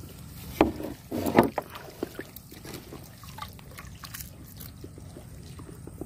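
Wet gill net being hauled by hand over the side of a small boat, with water dripping and sloshing. There are two louder splashes or knocks in the first second and a half, then light scattered ticks and rustles as the mesh is pulled through.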